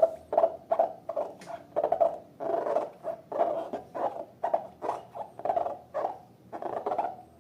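Sticky slime being squished and worked, giving a quick run of wet squelches and small pops, about three a second.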